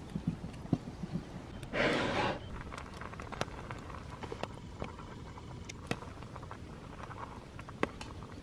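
Scattered light clicks and taps: peeled chestnuts being handled, then a spoon stirring a steaming pot over a campfire. A short rush of noise comes about two seconds in.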